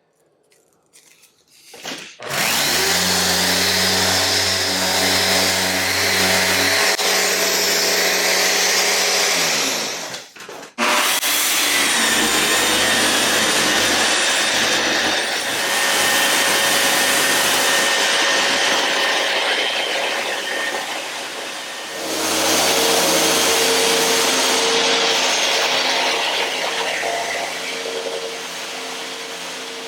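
Electric power tool running, with a motor hum under a loud hiss. It starts about two seconds in, cuts out briefly about ten seconds in, starts again, and its pitch shifts about two-thirds of the way through.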